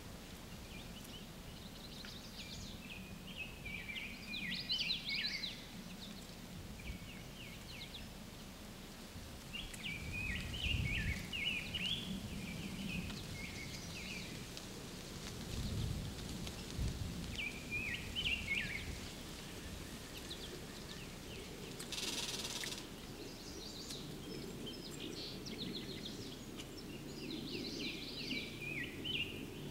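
Songbirds singing in short chirpy phrases every few seconds over a steady outdoor background, with a couple of low rumbles and a brief hiss about two-thirds of the way through.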